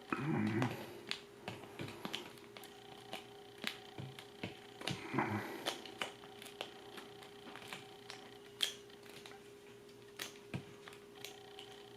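Scattered small clicks and taps of hands and a cutting tool working on heat-shrink tubing for a power cable, over a faint steady hum.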